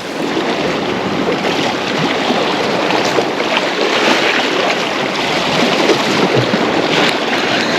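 Sea swell washing against the shore rocks: a steady rushing of water that swells up at the start and holds.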